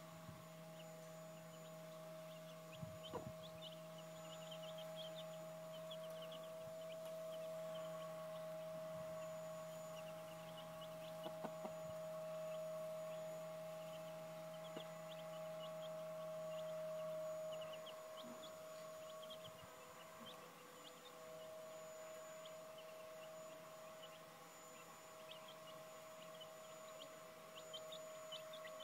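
Young Welsummer–Buff Orpington cross chicks peeping softly and often while huddled under their mother hen, over a steady hum.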